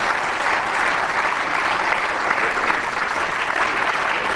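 Steady applause from many parliamentarians clapping in a plenary chamber.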